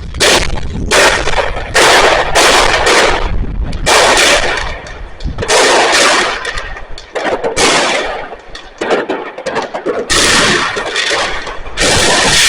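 Consumer fireworks going off: rapid strings of bangs and crackling come in about eight bursts, each a second or so long, with short lulls between them.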